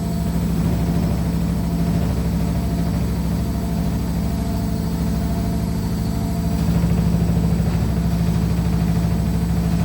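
Washing machine running loudly with a steady low hum and a fast, even rattle as it shakes and jumps on the floor.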